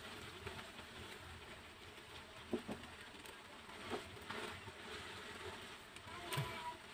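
Beaten egg sizzling faintly in oil in a nonstick pan, with a few clicks and scrapes of a slotted metal spatula against the pan, the loudest about two and a half and six and a half seconds in.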